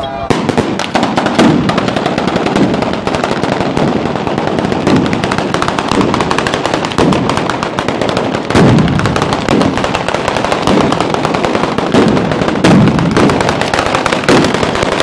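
Southern Italian ground firework barrage (batteria): a long chain of firecrackers going off in a dense, unbroken rapid crackle, with heavier bangs about every second. It starts abruptly and is very loud.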